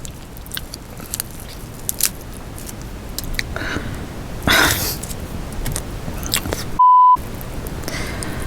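Crawfish being peeled and eaten close to the microphone: scattered sharp clicks and wet mouth sounds, with a loud breathy burst a little past halfway. Near the end a single steady censor beep, a pure tone, cuts in briefly with everything else muted around it.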